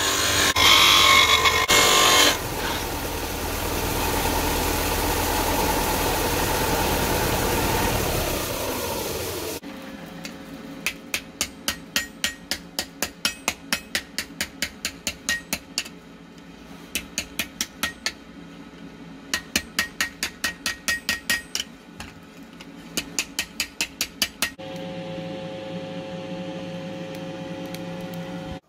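Bench disc sander grinding steel for about two seconds, then running on steadily. Then a hand hammer strikes a steel plate on an anvil, bending and texturing its edges: quick ringing blows, about four a second, in four runs. A steady hum near the end.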